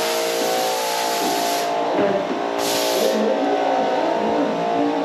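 Background music with guitar and sustained chords. A high hiss runs over it, cutting off about a second and a half in and coming back briefly around the three-second mark.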